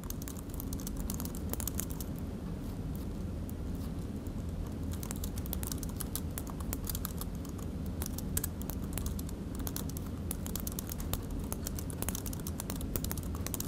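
Typing on a computer keyboard: irregular runs of key clicks with short pauses between them, over a low steady hum of room noise.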